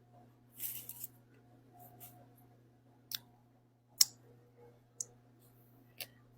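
Close-miked eating sounds: a short crunchy bite near the start, then sharp mouth clicks about a second apart, over a steady low hum.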